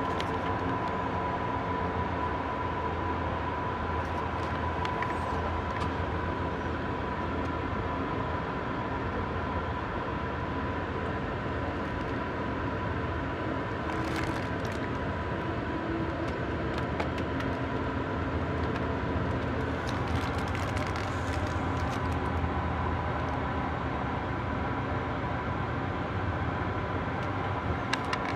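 Amtrak Sunset Limited passenger train heard from inside a car as it pulls slowly out of the station: a steady low rumble and hum with a steady high whine over it, and faint clicks now and then.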